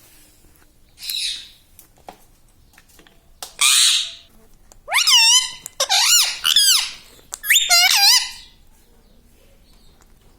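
Indian ringneck parrot calling: two harsh squawks, then a quick run of high, whistle-like calls that dip and rise in pitch.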